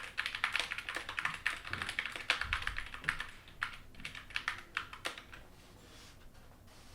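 Typing fast on a GK61 60% mechanical keyboard with brown switches: a rapid clatter of keystrokes that thins to a few scattered presses about five seconds in.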